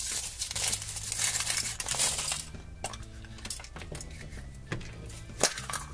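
Foil wrapper crinkling as it is peeled off a Chupa Chups chocolate ball. The rustling is dense for the first couple of seconds, then turns to scattered crackles and small clicks.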